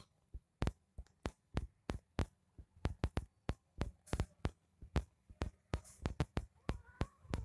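Newborn kittens suckling at their mother, a run of quick wet smacking clicks about three or four a second, with a faint mew near the end.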